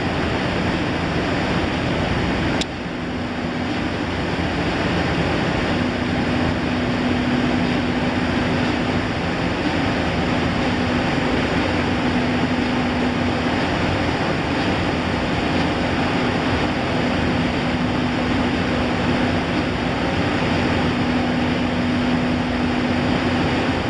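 Rice-husk cyclonic furnace and paddy dryer running: a steady rushing roar of machinery with a steady low hum underneath. A click and a short dip in level come about two and a half seconds in.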